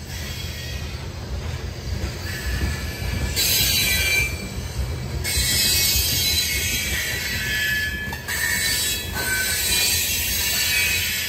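Freight train rolling past with its wheels squealing on the rails, the high squeal coming and going over a steady low rumble.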